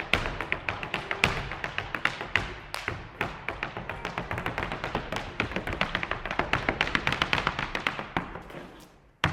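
Irish dance hard shoes striking a floor in fast, rhythmic taps, several a second, fading out near the end.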